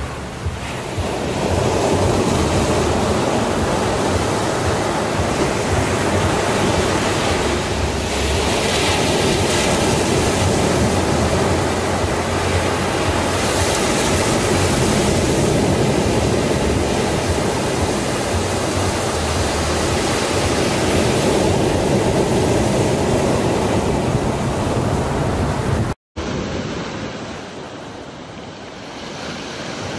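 Sea waves breaking and washing up the shore, a steady rush of surf. About 26 seconds in it breaks off for an instant and comes back quieter, as waves wash up a pebble beach.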